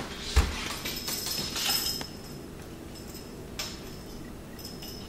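Handling noise from a small cardboard earplug box: a sharp knock about half a second in, then rustling and a few light clicks as it is turned over and opened.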